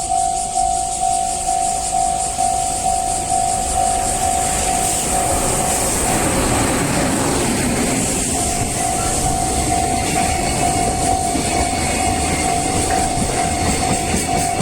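Japanese level-crossing alarm ringing its rapid, repeating electronic bell tone while a train passes. The rumble of wheels on rail swells about six seconds in and briefly drowns the bell.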